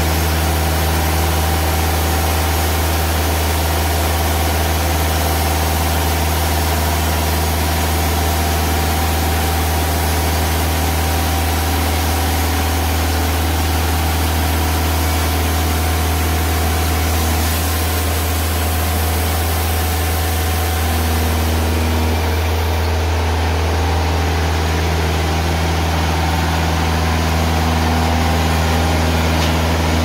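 Timberking 2000 band sawmill running at full throttle, its engine giving a steady drone while the band blade saws through an ash log.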